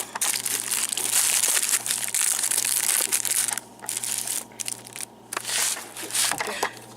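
Fireworks packaging and bags crinkling and rustling as the fireworks are unpacked and laid out, with a few short pauses in the handling about halfway through.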